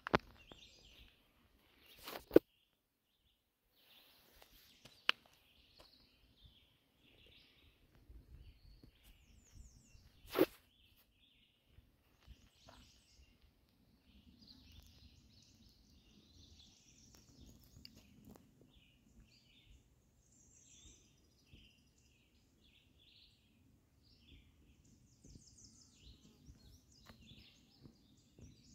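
Small birds chirping faintly, short calls repeating throughout, with a few sharp clicks in the first ten seconds, the loudest about ten seconds in.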